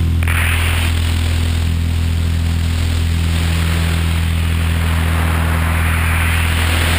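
Electric RC helicopter (Tarot 500) heard from its onboard camera: motor, gears and main rotor humming at a steady pitch, with a rushing of air that swells and fades as it manoeuvres.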